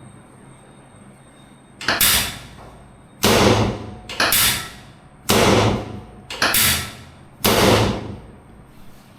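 Six loud thuds, roughly one a second, each followed by a short rushing fade.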